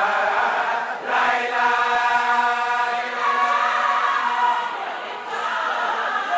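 A large group of women chanting a Wolof religious praise song together, with a long held note about a second in.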